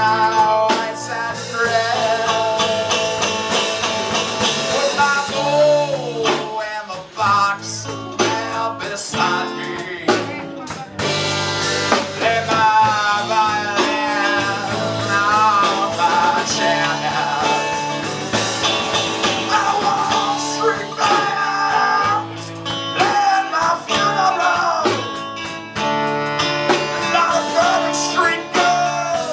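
Live band playing a bluesy rock number on saxophone, electric guitar and drums, with a wavering lead melody over a steady beat.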